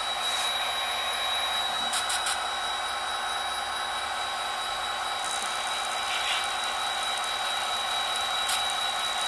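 A steady mechanical hum with a thin high whine running under it, and a few faint brief whirs or clicks now and then.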